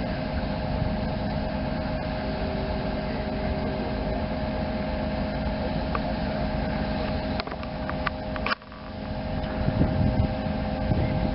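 Large mobile crane's engine running steadily with a constant whine, as the crane holds a battleship gun barrel on its slings. A few sharp clicks and a brief drop-out come about eight seconds in, after which the running sound is rougher and lower.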